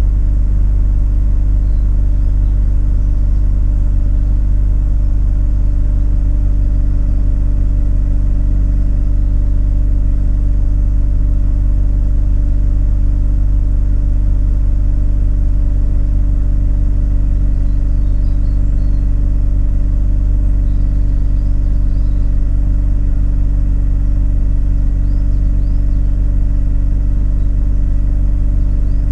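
Mazda RX-8's two-rotor Wankel rotary engine idling steadily at an even pitch, with no swings in speed. The engine has a misfire that the owner later traced to incorrectly wired fuel injectors.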